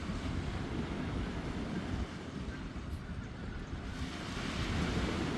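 Wind buffeting the microphone over a steady, even rushing noise, with no distinct events.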